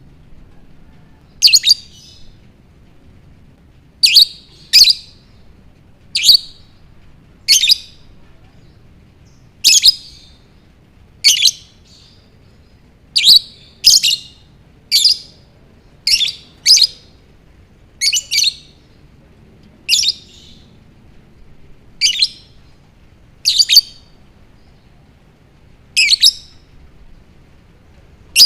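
A lovebird chirping: short, shrill, high calls repeated every one to two seconds, some in quick pairs.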